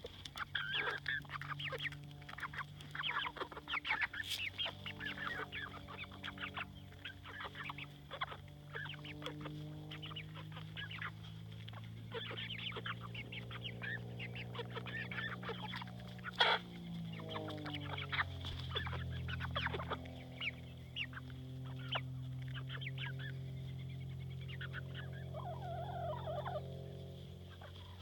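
Domestic chickens clucking, many short calls in quick succession, over a steady low hum that shifts pitch about two-thirds of the way through. There is one sharp click about halfway.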